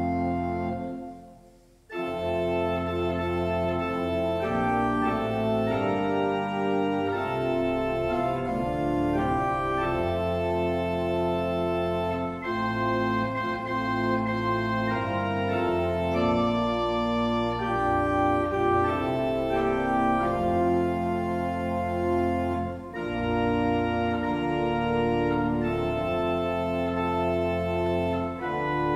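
Pipe organ playing a hymn in full held chords over a moving bass line. About a second in, a chord dies away to near silence, and the playing starts again at about two seconds.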